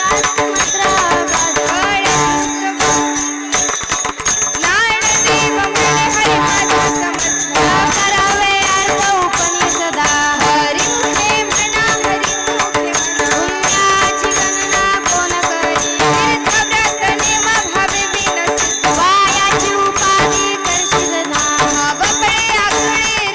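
Marathi devotional bhajan music: a wavering melody over a steady held drone, driven by fast, continuous jingling percussion.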